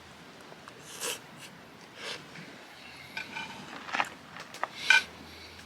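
Cooking utensils clicking and clinking against metal cookware in a series of light knocks, the loudest ringing clink just before the end, after a couple of short swishes.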